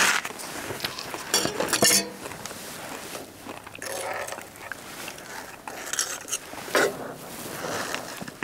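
Utensils clinking and scraping against dishes in short, irregular bursts, with soft rustling, as food is dished up and mixed.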